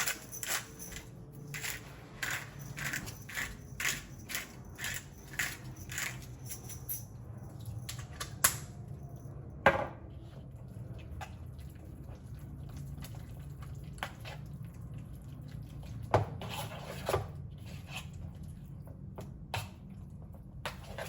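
Kitchen utensils and containers handled during food prep: a quick run of light taps, about two a second, for the first seven seconds or so, then a few scattered knocks and clinks over a low steady hum.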